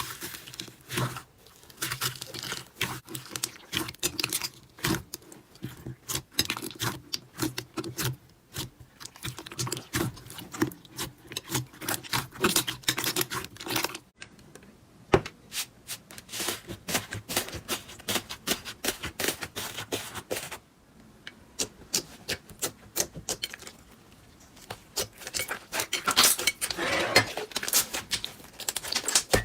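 Slime being squished, poked and stretched by hand, giving a dense run of irregular crackling clicks and pops. It comes in several short clips, with breaks about a third and two-thirds of the way through.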